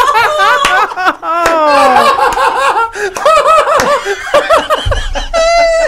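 Several people laughing hard in gasping, breathless bursts. One voice slides down in pitch about a second and a half in, and a high, drawn-out squeal of laughter comes near the end.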